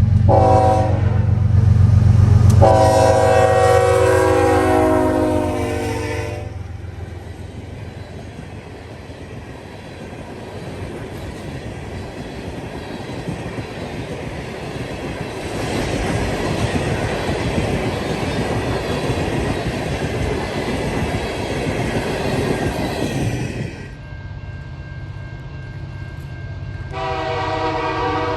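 Diesel freight locomotive passing with its engine running loud and its multi-chime air horn sounding, a short blast then a longer one of about four seconds. The horn stops and the train's cars roll by with a steady rail and wheel noise. Near the end another horn blast begins.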